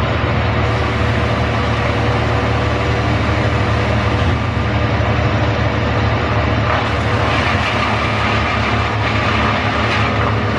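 Engine of the tree crew's heavy equipment running steadily with a deep hum and a steady tone over it. A harsher, hissing noise joins about seven seconds in.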